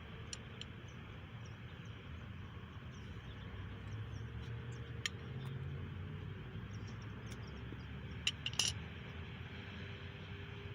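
Steady low background rumble with a faint hum, broken by scattered small clicks and a short, louder clatter of a few clicks about eight seconds in.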